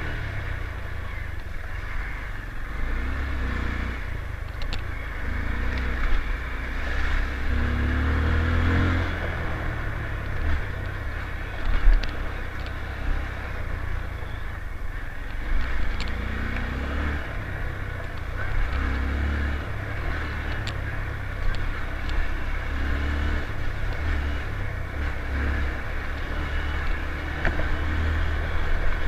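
Motorcycle running along a road, its engine noise mixed with a steady low rumble of wind on the microphone that swells and dips.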